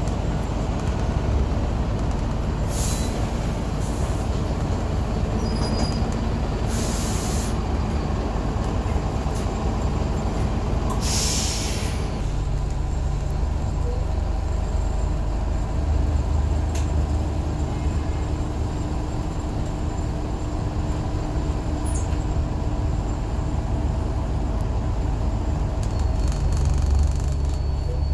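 Scania N94UB bus's diesel engine running, heard from inside the saloon as a steady low drone. There are three short hisses of compressed air from the bus's air system, the loudest near the middle. The engine note grows stronger soon after.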